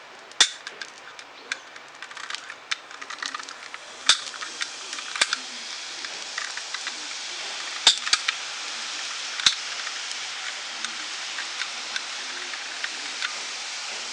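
Besan sev dough strands deep-frying in hot oil in a kadhai: a sizzle that builds up about four seconds in and then holds steady, with sharp pops and crackles scattered throughout.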